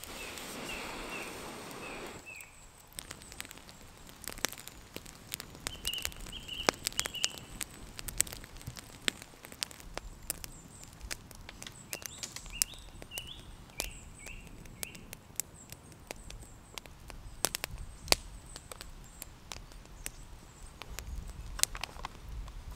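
Irregular sharp taps of water dripping onto leaves and leaf litter in wet woodland. A small bird calls a few times in short series of high chirps.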